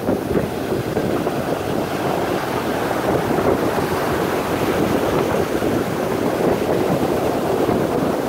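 Steady rush of ocean surf, with wind buffeting the microphone.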